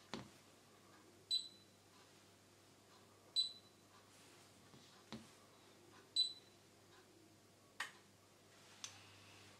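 Balay induction hob's touch controls beeping three times, short high beeps a couple of seconds apart, as the cooking zone is switched on and its power set. A few soft knocks come in between.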